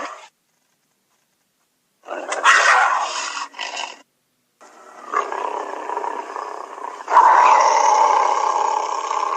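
Big-cat roars from a jaguar sound-effect set: a short roar about two seconds in, then a longer growling roar that swells louder about seven seconds in.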